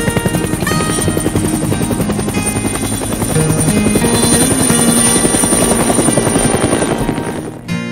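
Helicopter sound effect: rotor blades chopping fast and evenly with a high steady whine, fading out near the end. Light acoustic guitar background music plays underneath.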